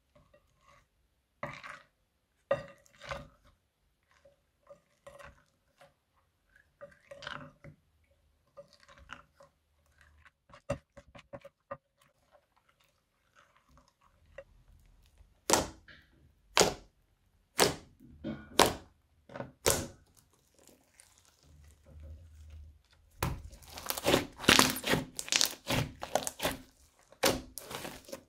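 Crunchy slime being squished and pressed, crackling and popping: scattered soft clicks at first, a run of sharp snaps about once a second midway, then dense crackling near the end.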